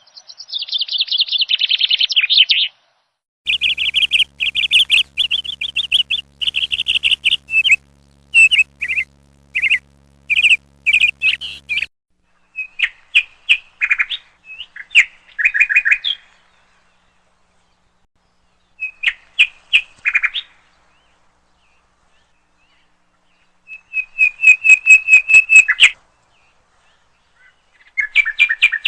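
A bird chirping in phrases of rapid, repeated trilled notes, broken by gaps of silence; a faint low hum sits under the longer phrases in the first half.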